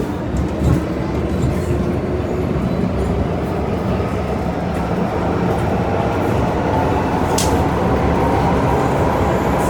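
Metro-Cammell M-Train electric multiple unit running, heard on board: a steady rumble of wheels and running gear, with a motor whine that slowly rises in pitch as the train picks up speed. A single sharp click comes about seven and a half seconds in.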